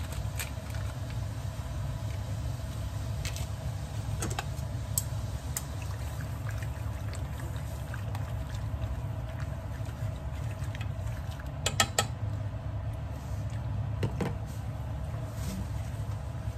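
Kitchen cooking sounds: a steady low hum under scattered light clicks and taps, with a small cluster of taps about twelve seconds in.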